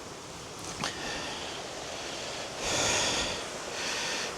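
A person's breathing close to the microphone: a long, hissy breath a little past the middle and another starting near the end, with a faint click just under a second in.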